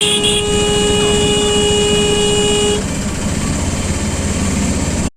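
A vehicle horn sounding one long steady note for about three seconds, over a loud, steady noise that carries on after the horn stops.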